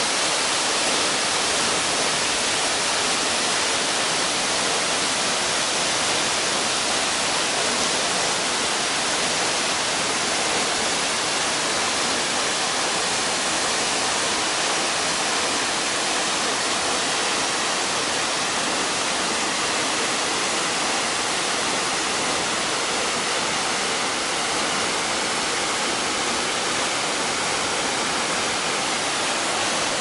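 Waterfall pouring down a narrow rock cleft: a steady, even rush of falling water.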